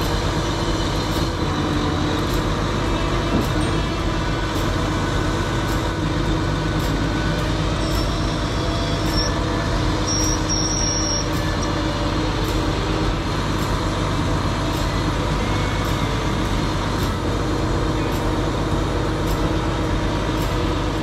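Flatbed lorry's diesel engine running steadily while its hydraulic loader crane lifts a load off the bed. A high whine comes and goes about eight to eleven seconds in.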